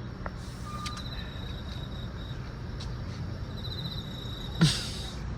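Steady low rumble of a car, with a few faint high chirping trills and one brief, loud, sharp sound about four and a half seconds in.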